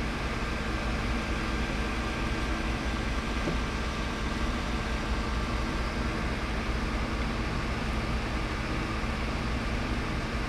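Steady hiss with a low electrical hum from the radio bench equipment, unchanging throughout.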